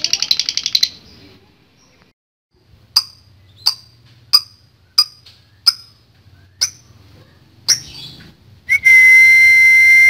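Fischer's lovebird song: a fast, rattling run of high chirps (the long 'ngekek' trill) cuts off just under a second in. It is followed by a string of single sharp chirps about two-thirds of a second apart. About nine seconds in, a loud, steady, high whistle begins at one unchanging pitch.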